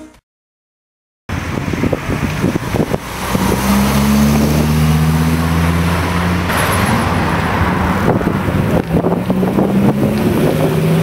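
After about a second of silence, Dodge Viper V10 engines running as the cars pull away along the road: a low engine note from a few seconds in, then another rising near the end as a second Viper passes close, with wind noise on the microphone.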